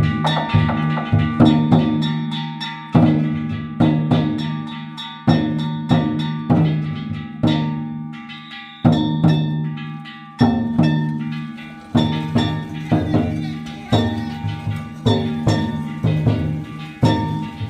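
Danjiri float festival music: a large taiko drum struck heavily about every one and a half seconds, over quick, ringing strikes of small hand gongs.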